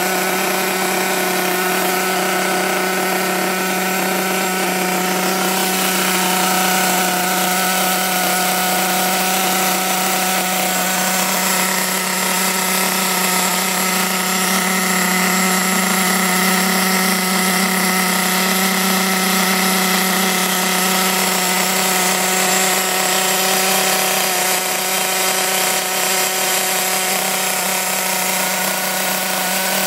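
HPI Trophy Truggy's 4.6 cc nitro glow engine running steadily at a constant high-pitched buzz with the truck standing still. The brand-new engine is being run in.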